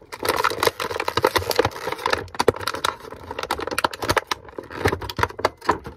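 Plastic action-figure packaging being handled as the figure is worked free of its tray: a dense, irregular run of crinkles and sharp clicks.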